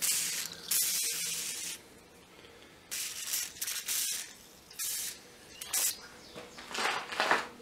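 Wet hand-sanding of a hardened steel wakizashi blade: about six irregular hissing bursts of water being sprayed onto the blade and sandpaper strokes along it.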